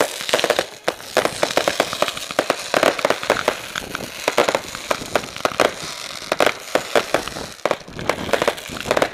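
Fireworks going off at close range: a dense, irregular run of crackling pops and bangs, several a second, over a steady fizzing hiss.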